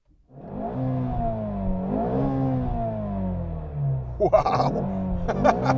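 Ford Shelby GT350's 5.2-litre flat-plane-crank V8 starting at the press of the start button: it catches almost at once and runs at raised revs that rise and fall once about two seconds in, then slowly ease down. A few short, sharp, louder sounds come over it after about four seconds.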